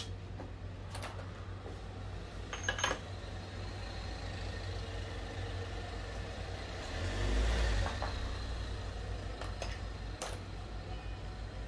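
Daelim Couple 50cc scooter engine running at idle, with a brief rise in revs about seven seconds in; a few sharp clicks, the loudest about three seconds in. The engine runs unstably and stalls, with coolant getting into the cylinder.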